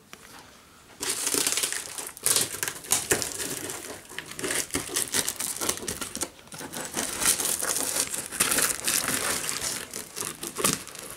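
Plastic wrap and packing tape crinkling and tearing as a large cardboard box is cut open with scissors. It starts about a second in as a dense run of crackles, with a brief lull a little past the middle.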